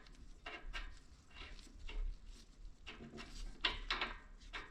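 Faint scattered clicks and light knocks of small metal parts and hand tools being handled: the spark plug just unscrewed from the engine and the plug socket and ratchet.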